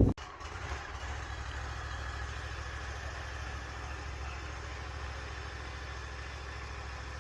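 A vehicle's engine idling steadily, a low, even hum.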